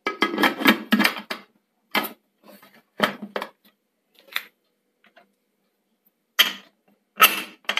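Metal clatter and knocks from an aluminium pressure cooker being closed up on the stove. A quick run of clanks comes in the first second and a half, then single knocks follow every second or so.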